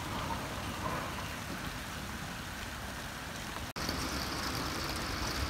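Steady rain falling outdoors, an even hiss with a low rumble underneath. It drops out for an instant just under four seconds in and returns with a brighter hiss.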